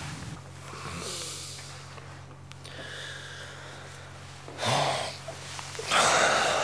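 A man breathing out heavily in a few loud, breathy exhales, the strongest about five and six seconds in, over a steady low hum.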